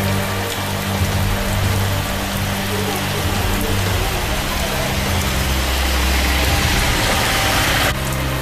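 Heavy rain pouring onto bare ground and standing water: a dense, steady hiss of drops that changes suddenly near the end.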